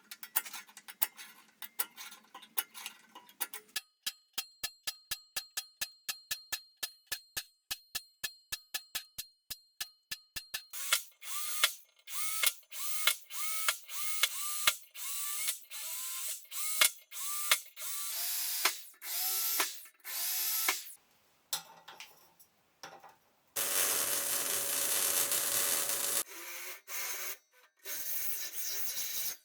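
Workshop power-tool work: a quick run of even clicks, then a small motor tool run in many short bursts, each winding down in pitch as it stops. A longer steady run comes about 24 seconds in.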